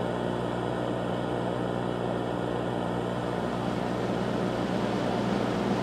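A steady, low droning hum made of several unchanging tones, swelling slightly louder near the end.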